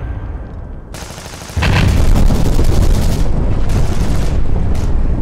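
Battle sound effects: a low rumble, then about a second and a half in a sudden loud spell of rapid gunfire over deep booming, with a few separate blasts near the end.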